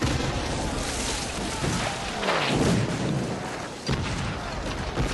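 Film battle soundtrack: booms of cannon fire and explosions breaking in suddenly, the clearest at the start, near the four-second mark and at the very end, with men shouting in the middle over music.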